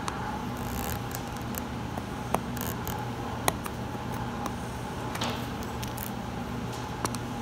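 Screwdriver prying staples out of a vinyl snowmobile seat cover: brief scraping and a few sharp clicks as staples pop free, over a steady background hum.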